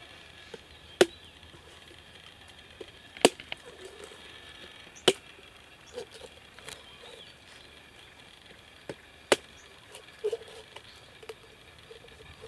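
Sharp chopping strikes splitting open a young coconut: four hard blows spaced a couple of seconds apart, with a few lighter knocks between them.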